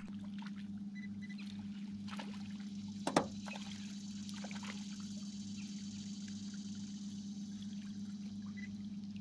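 A steady low hum with light water trickling, broken by one sharp knock about three seconds in.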